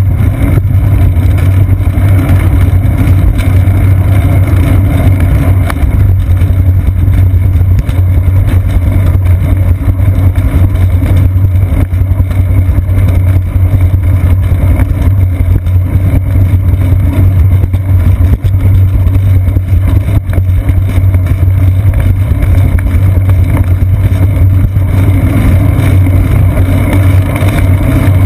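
Loud, steady low rumble of wind and road vibration on a seat-post-mounted GoPro Hero 2 as the bicycle rolls along a paved path.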